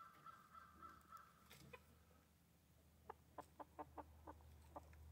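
Faint chicken clucking: a quick run of about seven short clucks in the second half, after a faint steady high tone in the first second and a half.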